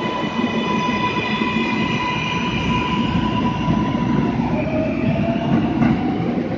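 R188 subway train accelerating out of the station: its propulsion motors give off a whine over a steady rumble of wheels on rail. The whine holds one pitch, then drops and starts rising again about four and a half seconds in.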